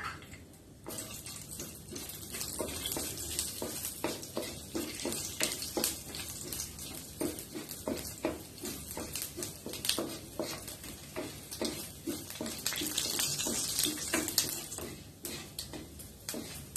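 Tempering spices with a dried red chilli frying in hot oil in an iron kadai, hissing and crackling, starting suddenly about a second in as they hit the oil, while a wooden spatula stirs them.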